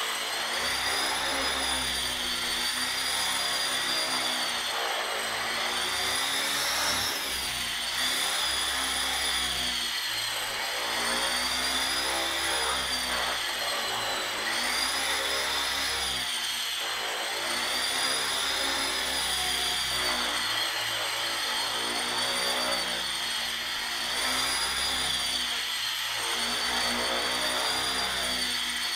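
Align T-Rex 450 Pro electric RC helicopter in flight: a continuous high whine from the motor and gears over the buzz of the rotor blades. The pitch rises and falls together every few seconds as the rotor speed changes.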